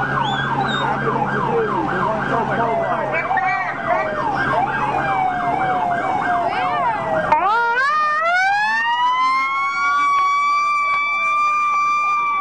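Ambulance siren at close range, running a fast yelp of about three pitch sweeps a second, then switching about seven seconds in to a long rising wail that climbs and holds one high note.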